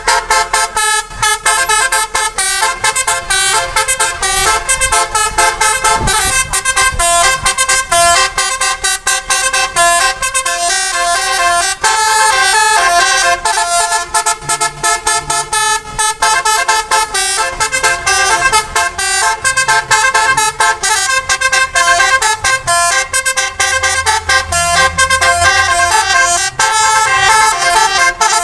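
Telolet-style musical bus horn (a 'basuri' multi-tone horn) playing a fast melody of short notes that change pitch several times a second, with no break.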